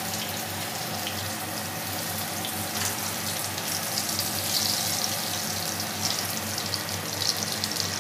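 Brinjal slices sizzling steadily as they shallow-fry in hot oil in a flat pan, with a fine crackle throughout.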